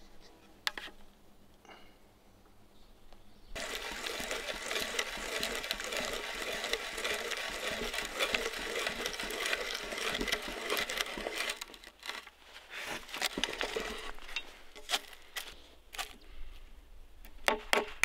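Hand brace and auger bit boring into a timber beam: a steady crackling cutting of wood fibre that starts suddenly about three and a half seconds in and runs for about eight seconds. Near the end a wooden mallet starts striking a chisel in quick, sharp blows.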